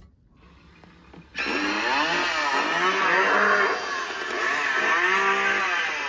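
Leatherface Halloween animatronic playing its chainsaw sound effect through its speaker, starting about a second and a half in and revving up and down several times.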